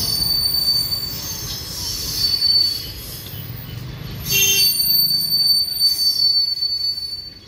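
Indian Railways passenger coaches of the Howrah–Raxaul Express rolling past with a low rumble, their wheels squealing in a thin, high, steady tone. The squeal fades after about three seconds and returns louder about four seconds in.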